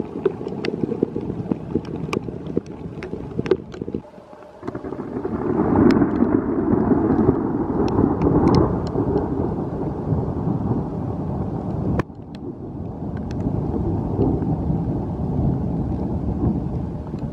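Steady rain and wind in a weak thunderstorm, with a low roll of thunder that swells about five seconds in and fades away over several seconds. Sharp ticks of raindrops striking the camera in the first few seconds.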